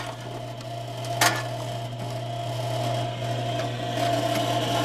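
Titan Model 350 Pro-Feed hinged steel belt parts conveyor running: a steady mechanical hum, with a single sharp clank about a second in.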